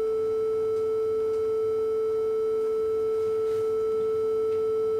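Steady mid-pitched tone from an FG100 DDS function generator putting out a triangle wave, heard through a receiver's speaker. The tone is unbroken and even in level, with faint higher overtones.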